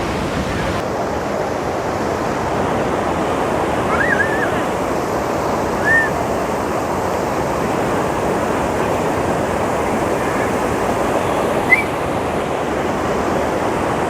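Steady rush of water from a large waterfall, with three brief high chirps: a wavering one about four seconds in, a short one about six seconds in and a quick rising one near the end.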